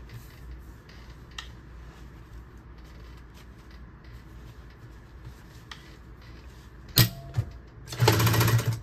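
Faint low hum and fabric handling, a single sharp click about seven seconds in, then a Consew 206RB-1 industrial walking-foot sewing machine starts stitching near the end in a fast, steady run: a test sew on the freshly fitted needle.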